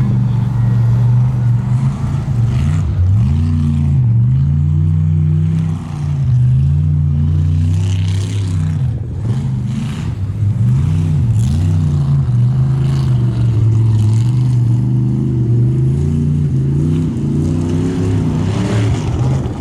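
Formula offroad truck's engine revving hard and unevenly, the pitch swinging up and down every second or two as the throttle is worked.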